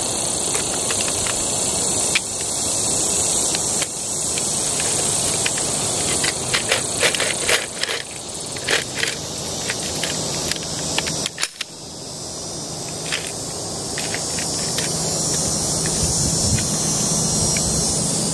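Metallic clicks and rattles of an MG34 machine gun being handled for loading, its top cover opened and worked by hand. The clicks come in a scatter during the first half. Under them runs a steady high background hiss.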